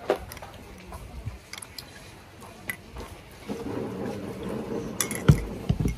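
A metal spoon clinking a few times against a glass mug while stirring sweet soup, then slurping and sipping the soup from the mug, with a knock of the mug near the end.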